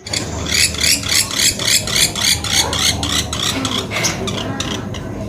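Pelatuk beras, a small woodpecker, calling in a fast, even series of sharp high notes, about four a second, that breaks into a few scattered notes near the end.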